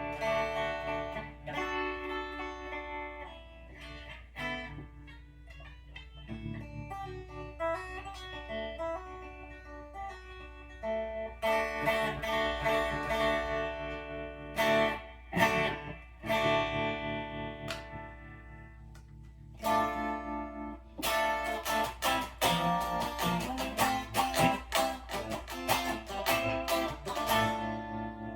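Electric guitar, a Warmoth Custom Shop Stratocaster with Lindy Fralin Vintage Hot pickups, played clean-to-lightly-driven through an amp: picked single notes and chord phrases, quieter and sparser in the middle, then busier strummed chords from about two-thirds of the way in. A steady low hum sits underneath.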